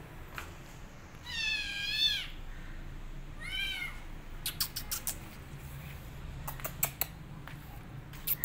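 Kitten meowing twice: one long, high, rising-and-falling meow, then a shorter one. Several sharp clicks follow in the second half.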